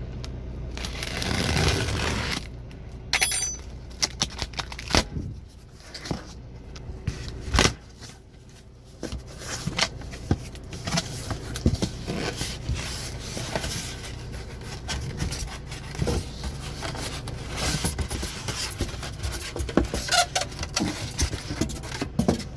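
Cardboard shipping box being cut open and handled: a blade scraping through it, cardboard crackling, and scattered sharp knocks and clicks.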